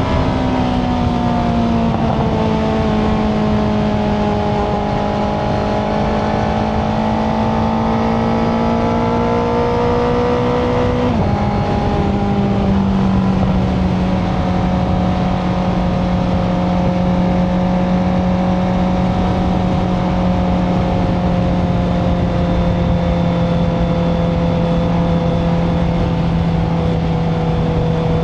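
Honda CBR650R's inline-four engine through an Akrapovic titanium racing exhaust, running under way at steady revs over wind and road noise. About eleven seconds in the engine note drops abruptly, as at an upshift, then holds steady and sags slowly.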